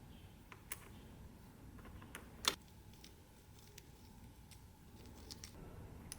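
Scattered light clicks and taps over a quiet background, with a sharper, louder click about two and a half seconds in.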